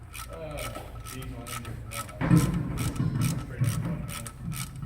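Hand ratchet clicking in a run of short strokes as an oil drain plug is tightened until snug.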